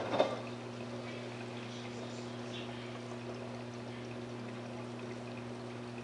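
LG WD12596 11 kg front-load washing machine during a rinse: a sharp click as the drum's tumbling stops, then water running through the machine over a steady low electrical hum.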